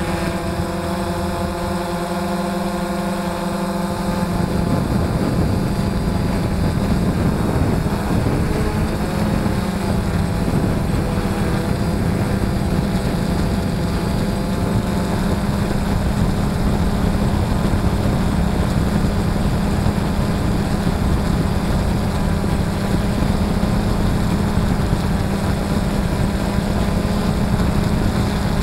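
DJI F550 hexacopter's six brushless motors and propellers whirring in flight, heard from the onboard camera as a steady drone. It gets louder and rougher about four seconds in.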